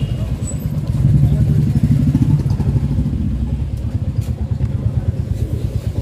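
A motorcycle engine running at low speed, with a steady fast pulse, picking up slightly about two seconds in.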